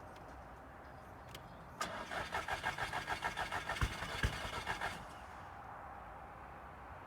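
VW Scirocco engine cranking on the starter for about three seconds in an even, fast chug without catching, with two low thumps near the end, then the starter stops. The engine cranks but won't start.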